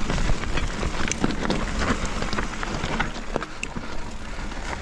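Mountain bike riding over a muddy, rooty trail: a steady rumble of tyres on the ground with many sharp clicks and knocks as the bike rattles over roots, and wind on the microphone. The low rumble eases a little after about three seconds.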